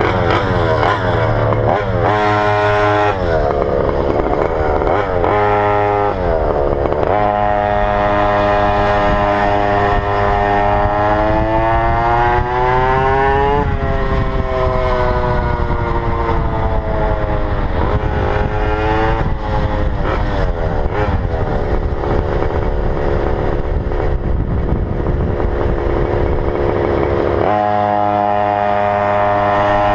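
Goped's GP460 two-stroke engine revving hard: a few quick throttle blips, then long pulls where the pitch climbs, drops sharply and climbs again. At wide-open throttle it makes an odd noise whose cause the owner doesn't know.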